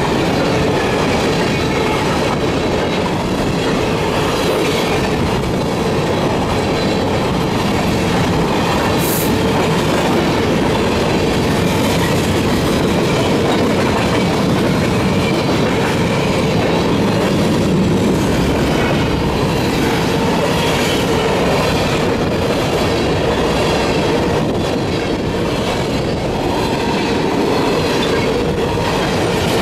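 Freight train cars rolling past, a loud, steady rumble of steel wheels on the rails with a faint continuous squeal.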